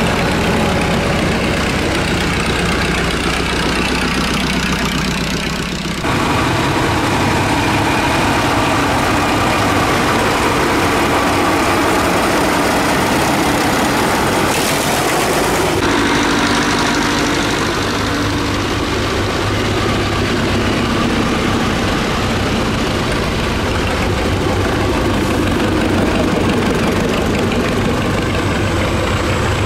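Tractor engines running as tractors pass slowly one after another, including a home-built tractor with a big multi-cylinder engine and open vertical stack pipes. The engine sound changes abruptly twice as different machines take over.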